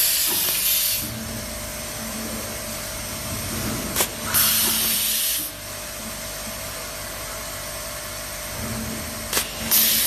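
SWIFT SWT36150H hand-held automatic cable tie gun cycling. Each tie is fastened with a sharp click, followed by about a second of compressed-air hiss as the next nylon tie is blown through the feed tube. This repeats about every five seconds over a steady low hum.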